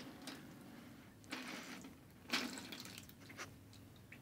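Liquid pouring from a tipped container and splashing into a plastic bin bag in uneven gushes, loudest about two seconds in.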